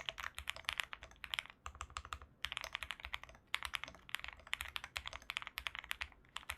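Fast typing on an Owlab Spring mechanical keyboard with Cotton Candy switches on a POM plate and clone GMK keycaps: rapid key clicks in runs with brief pauses, stopping suddenly near the end.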